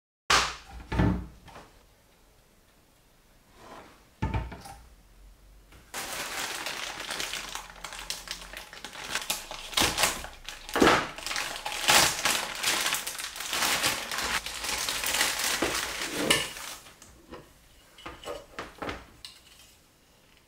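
Clear plastic bag crinkling and rustling for about eleven seconds as it is opened and the welding cables and clamps are pulled out, after a few knocks of handling near the start; small clicks near the end as the electrode holder is handled.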